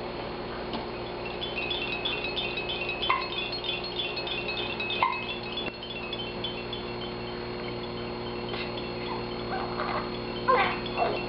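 A tinkling chime-like tune, a quick run of high repeating notes lasting several seconds, with short sharp hiccups about two seconds apart and a few brief louder sounds near the end.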